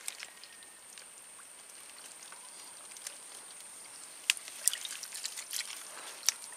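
Hands digging and scooping in a muddy, water-filled hole: wet trickling and sloshing, with scattered sharp clicks that come more often in the last two seconds.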